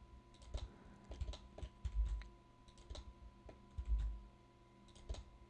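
Faint, irregular clicks of a computer keyboard and mouse as lamps are duplicated and moved in Blender, with a couple of soft low thumps and a faint steady high hum.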